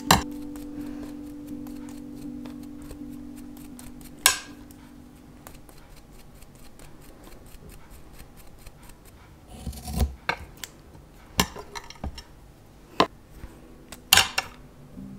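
Small scissors snipping: about six sharp, short snips, one near the start, one about four seconds in and a cluster in the last five seconds. Soft background music fades out over the first few seconds.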